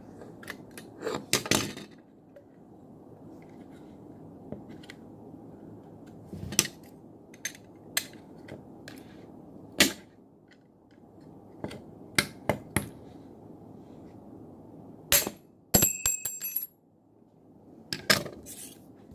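Scattered sharp clicks and taps of small tools and phone parts being handled while a smartphone is taken apart, over a faint steady hiss. Near the end there is a brief quick rattle with a light metallic ring.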